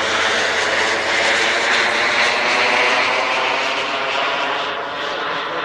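Small gas turbine engine of a radio-controlled model jet in flight, a steady jet whine and rush passing overhead. It swells through the middle and eases off a little toward the end.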